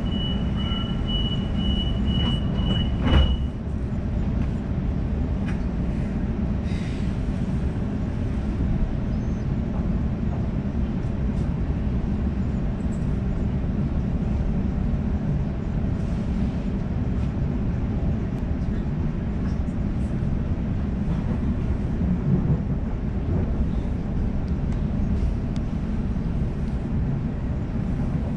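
Sydney suburban train: a rapid high-pitched beeping stops with a single thud about three seconds in, then the train's steady low rumble carries on.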